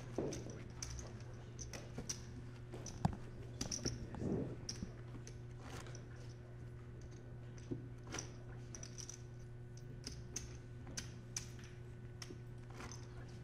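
Poker chips clicking as players handle and shuffle their stacks at the table: scattered light clicks, irregular, over a steady low hum.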